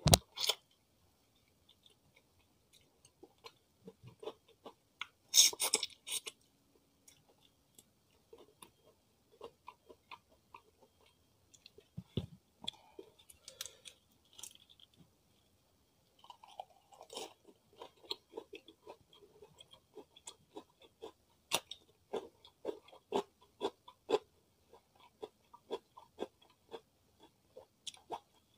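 Close-miked chewing of fried chicken and raw lettuce and cucumber: irregular wet mouth clicks and crunches, with a short, loud crisp crackle about five seconds in.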